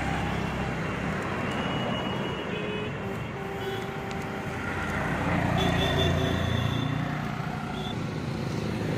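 Street traffic noise: a steady rumble of passing vehicles that swells about five seconds in, with a few faint, high held tones.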